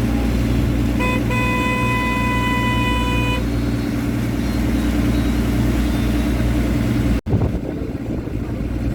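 Steady drone of a tour boat's engines under way. About a second in, a short horn-like toot, then a held horn tone for about two seconds. Near the end the drone breaks off suddenly and comes back quieter.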